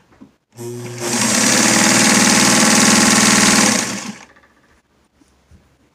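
1952 Admiral De-Luxe sewing machine, driven by a belt from its electric motor, running forward and stitching fabric for about three seconds. A rapid, even clatter of needle strokes over the motor's steady hum starts about half a second in and winds down near the four-second mark. The machine is running smoothly after a new belt and plug.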